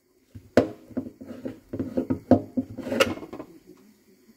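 Clear plastic containers being handled and set down on a kitchen countertop: a run of clattering knocks, the sharpest about half a second in and again near three seconds in.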